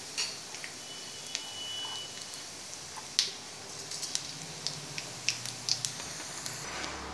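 Curry leaves and cumin seeds sizzling in hot mustard oil: a steady hiss with scattered sharp pops and crackles.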